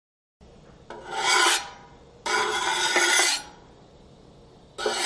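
Rasping scrapes, one abrasive surface drawn across another, in three separate strokes: a short one about a second in, a longer one of about a second just after two seconds, and another starting near the end.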